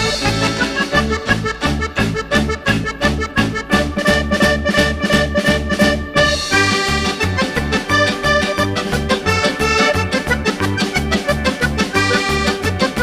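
Upbeat background music with a steady bass beat and an accordion-like lead melody.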